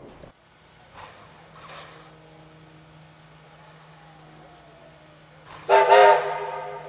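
Steam locomotive whistle sounding two short blasts in quick succession near the end, over a faint steady low hum.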